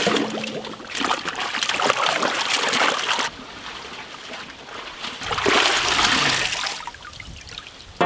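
Water splashing and sloshing in a large aluminium pot as raw whole chickens are washed by hand, in two spells: about three seconds of splashing, a quieter pause of about two seconds, then another burst.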